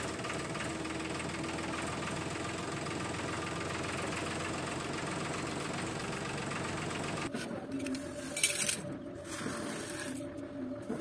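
Toy tractor's small motor and gears whirring steadily as it pulls the trailer. A few seconds before the end this gives way to short rustling hisses of sand.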